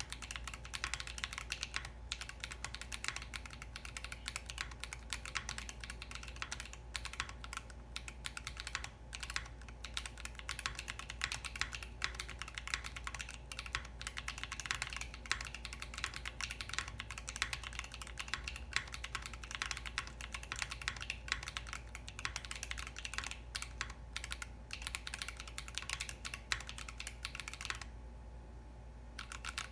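Fast, continuous typing on a custom 60% mechanical keyboard with lubed Akko Lavender switches on an FR4 flex-cut plate in a Blade60 case, with HK BoW keycaps. The typing pauses briefly near the end, then resumes.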